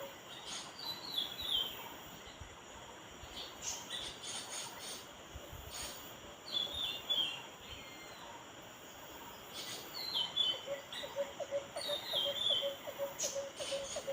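Bird calls: a short falling run of high, quick notes, repeated several times. A lower, quickly repeated piping note joins in over the second half, over a faint background hiss.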